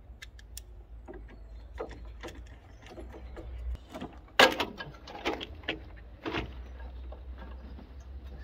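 Plastic windscreen cowl panel being pulled loose from its clips and mounts: a string of clicks, knocks and creaks, with the loudest knock about four and a half seconds in.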